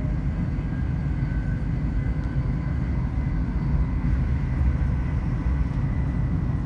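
LNER Class 801 Azuma train running at speed, heard inside the passenger saloon: a steady low rumble from the wheels and running gear, with a faint steady whine above it.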